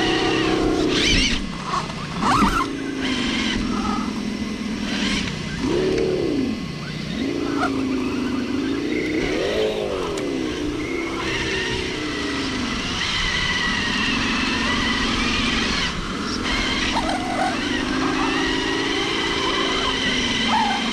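Radio-controlled off-road truck's electric motor and drivetrain whining, the pitch rising and falling as the throttle is worked. A few sharp knocks in the first couple of seconds as it crawls over rough ground.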